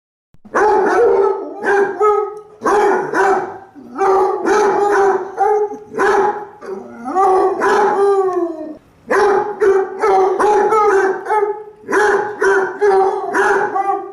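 Basset hound baying: a run of loud, drawn-out barks starting about half a second in, with one longer howl near the middle that falls in pitch at its end.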